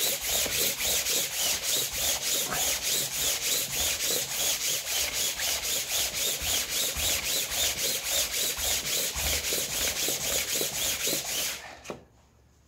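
An engine part's mating flange rubbed back and forth on sandpaper laid on a flat surface, about four strokes a second, to lap the face flat for a new gasket. The strokes stop suddenly near the end.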